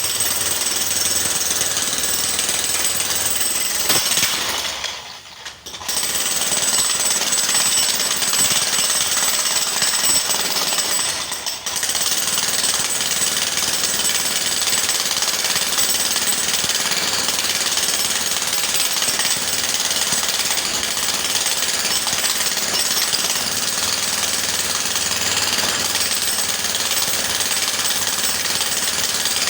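Electric jackhammer hammering continuously. It breaks off for about a second about five seconds in, and stutters for a moment just before twelve seconds.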